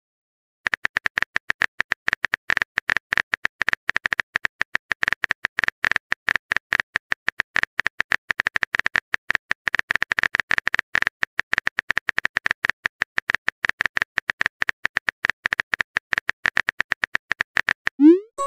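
Phone-keyboard typing sound effect: a rapid, irregular run of clicks. Near the end a rising swoop starts a message-notification tone.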